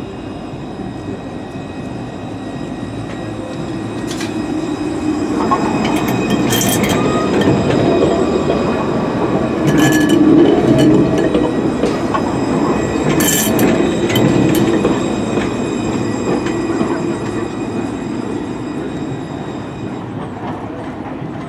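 Alstom Citadis low-floor electric tram running past on its rails, growing louder as it approaches and passes close by, then fading as it pulls away. Steady high whining tones sound over the rolling noise, and there are three brief sharp sounds from the wheels about three seconds apart.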